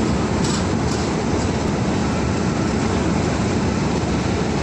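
Express train coaches rolling past along a platform: a steady rumble of wheels on the rails.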